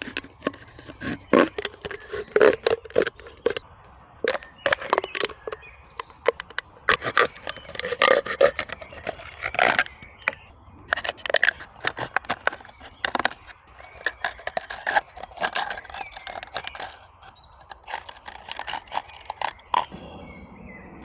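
An irregular series of sharp cracks, knocks and scrapes, coming in quick clusters throughout.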